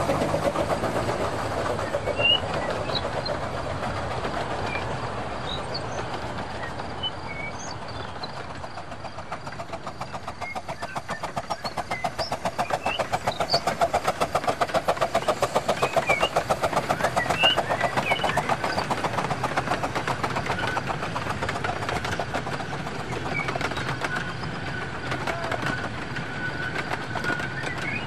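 0-scale model train running along the track: a fast, even rattle of wheels on the rails that fades a little and then grows louder again as the coaches come close by, with short high chirps scattered through.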